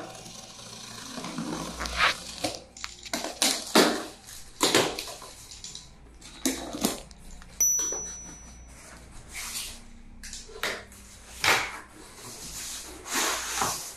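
Box cutter slicing the packing tape on a laptop's cardboard shipping box, then the cardboard flap being pulled open. The result is an irregular series of short scraping, rasping and rustling noises.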